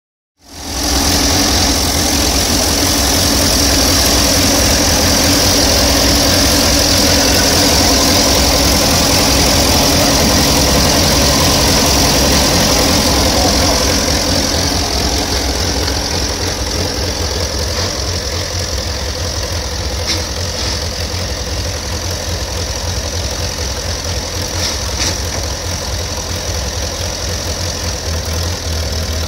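Grey Ferguson tractor engine running steadily at idle, with its distributor cap off, which the owner says does not stop it running.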